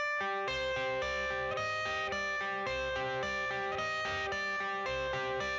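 Background music: an instrumental intro with guitar over a steady beat.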